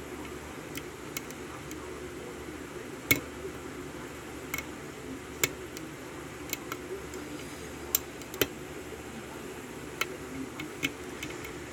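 Lock pick and tension wrench working the pins of a Corbin five-pin Euro cylinder: sharp metallic clicks and taps at irregular intervals over a steady low background noise.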